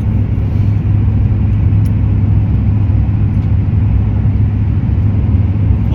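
Steady low drone of a car driving, engine and road noise heard from inside the cabin.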